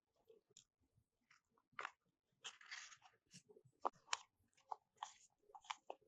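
Crunching and chewing through crunchy poke bowl food: scattered sharp crunches, with a longer crackle about two and a half seconds in.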